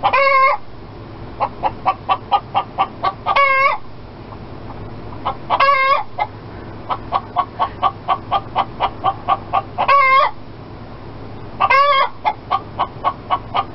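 A chicken clucking in quick short notes, about three a second, broken by five longer drawn-out squawks, the pattern of a hen's cackle.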